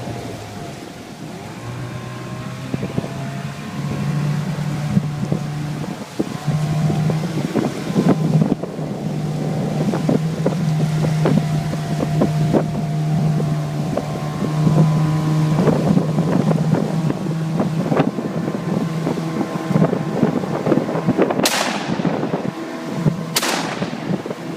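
15 hp Mariner outboard motor running steadily as a jon boat moves along, with wind on the microphone. Near the end two 12-gauge shotgun blasts ring out, about two seconds apart.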